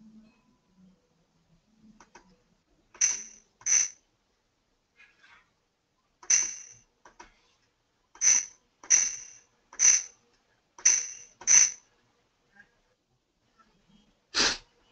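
Computer mouse clicking: about eight sharp clicks in an uneven run, some in pairs, then a single louder knock near the end.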